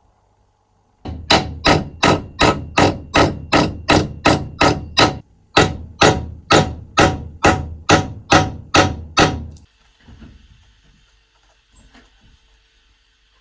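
A steady run of hammer blows, about two to three a second, with a short pause about five seconds in; the blows stop near ten seconds and are followed by a few faint knocks.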